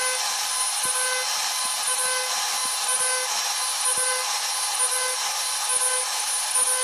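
CNC router spindle cutting wood with a router bit, a steady dense cutting noise with a faint recurring tone over it as the bit clears a flat area of the panel.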